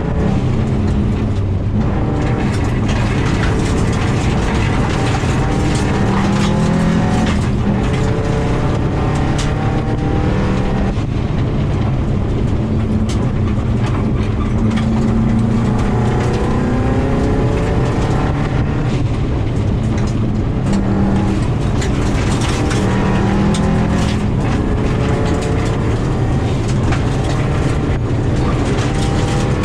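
2000 Subaru WRX's turbocharged flat-four engine under hard driving on a gravel rally stage, revs climbing and dropping back again and again through the gear changes. Loose stones tick and clatter against the car throughout.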